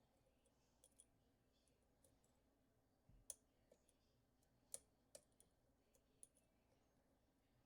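Faint, irregular clicks of a lock pick working inside a Goal D9 lock, about seven in all, the sharpest a little over three seconds in and just before five seconds.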